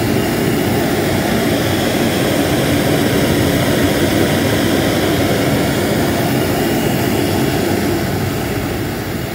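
Homemade Reil-style propane forge burner running with the gas wide open: a steady, loud roar of the flame, the roar that marks an oxidizing flame. It eases slightly near the end.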